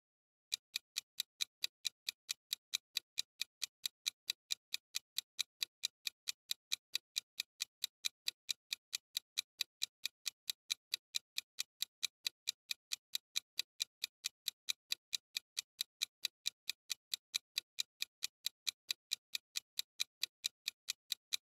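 Clock-ticking sound effect of a countdown timer: an even, mechanical tick about three times a second, starting about half a second in, marking the time left to answer.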